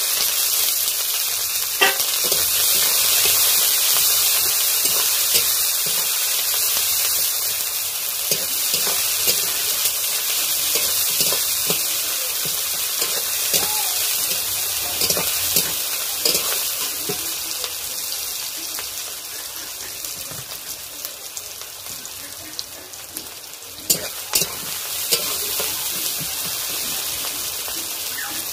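Chopped onions sizzling in hot oil in a metal karahi, stirred with a metal spatula that clinks against the pan now and then. The sizzle slowly quietens, and near the end two sharp clinks come close together.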